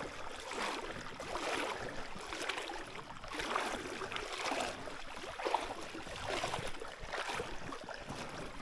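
A person wading through a creek at thigh depth, the water sloshing around the legs in surges about once a second, with each stride.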